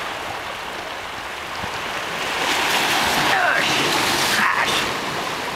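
Small sea waves washing and splashing against shoreline rocks, the surf noise swelling louder about halfway through.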